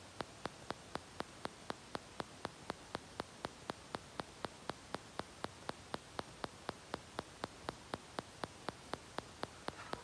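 Sharp, evenly spaced ticking, nearly four clicks a second, over a faint steady hiss.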